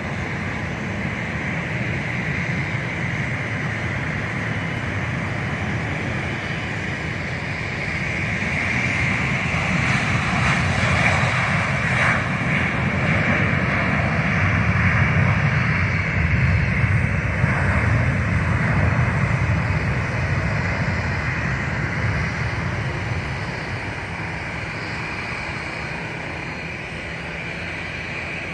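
Jet airliner's engines at takeoff power during the takeoff roll: continuous rushing engine noise with a steady high whine. It swells louder about a third of the way in, then eases off over the last several seconds as the plane climbs away.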